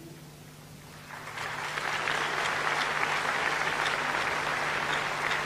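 Audience applauding. The clapping starts about a second in and then holds steady.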